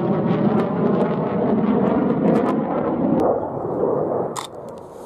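Loud rumbling jet noise with crackle from a JF-17 Thunder's single Klimov RD-93 afterburning turbofan as the fighter manoeuvres overhead, easing off about four seconds in.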